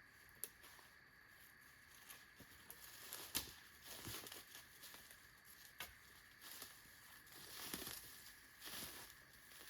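Footsteps crunching and rustling on the forest floor at a walking pace, with a sharper snap about three and a half seconds in.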